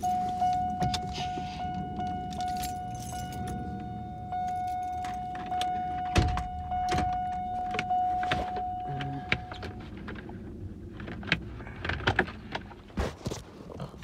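Car's warning chime: one steady high tone that pulses slightly and stops about ten seconds in. Under it are the clicks and knocks of keys and the ignition being handled.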